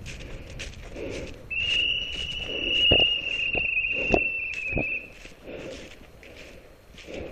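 Running footsteps crunching through dry fallen leaves, about three strides a second. From about a second and a half in, a loud steady high-pitched tone sounds for nearly four seconds, and a few sharp cracks come during it.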